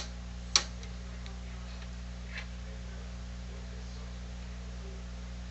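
Steady low electrical hum, with one sharp click about half a second in and a faint tick a couple of seconds later, from an oscilloscope probe being handled against a circuit board.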